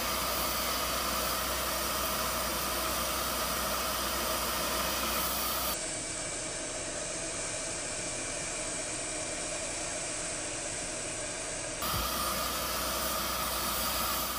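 Bissell SpotClean Pro portable carpet extractor running, its vacuum motor and hand tool giving a steady suction hiss as the tool is drawn across cloth seat upholstery, spraying rinse water and sucking it back out.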